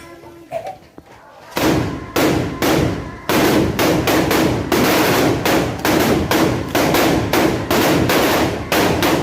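Loud, rhythmic banging: a run of heavy strikes, about two to three a second, starting suddenly about a second and a half in, each ringing briefly.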